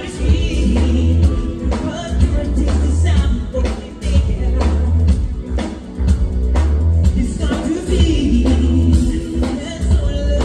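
Live pop band playing loudly: electric guitars, keyboards, a heavy bass and a steady drum beat, with a man singing over it.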